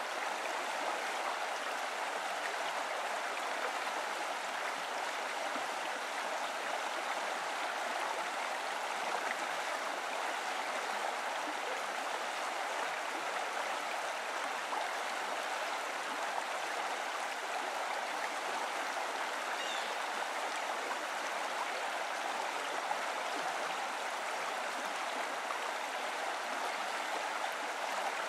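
Flowing water of a stream, a steady, even rush with no pauses.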